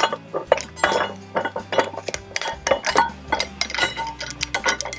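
Metal parts clinking and clicking, many sharp irregular clicks, as bolts and aluminum spacers are handled and fitted to a billet aluminum accessory bracket on an engine.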